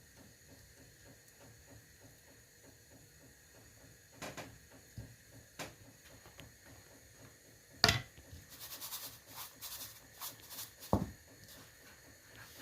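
Quiet kitchen handling sounds as chicken donuts are dipped in batter and coated in breadcrumbs: a few faint taps, a sharp click about eight seconds in, then a couple of seconds of dry, scratchy rustling and a knock.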